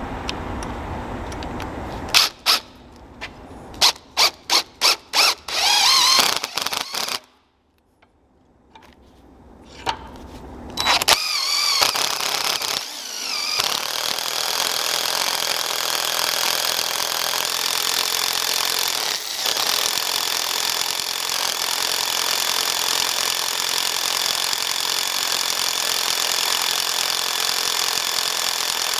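Power drill boring out the rivet in a mower throttle lever: a quick series of short trigger bursts, a brief pause, then a long steady run of drilling with the bit squealing as it cuts through the rivet.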